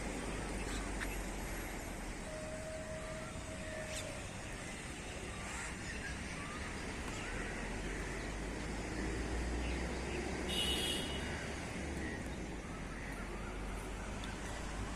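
Mixed birds chirping and calling over a steady low rumble of wind, with a louder, harsher call about ten and a half seconds in.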